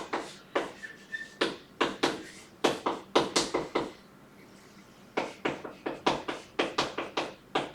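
Writing on a board: a run of sharp taps and short strokes, two or three a second, with a pause of about a second past the middle.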